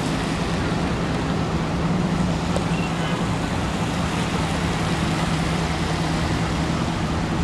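Steady road-traffic noise with a constant low engine hum, as from vehicles running or idling close by.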